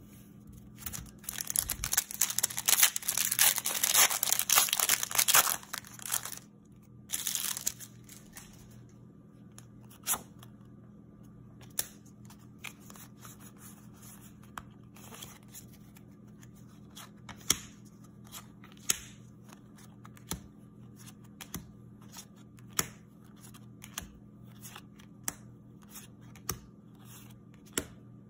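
The foil wrapper of a Pokémon trading-card booster pack crinkles and tears open for about five seconds, with a second short crinkle around seven seconds in. Then come the sharp snaps of trading cards being slid off the stack one at a time, roughly one every second, over a faint steady hum.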